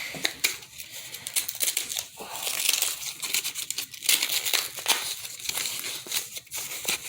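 Flashlight packaging crinkling and rustling in the hands as it is worked open, with irregular crackles and some tearing.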